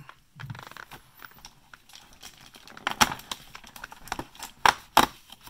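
Fingers prying at a perforated cardboard advent-calendar door, with light scraping and a few sharp cardboard clicks: one about three seconds in and two close together near the end.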